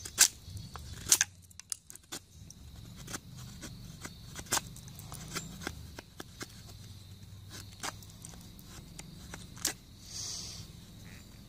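Mora Black bushcraft knife carving a hardwood stick: irregular short scrapes and sharp clicks as the blade bites into and shaves the wood, with a longer scrape about ten seconds in.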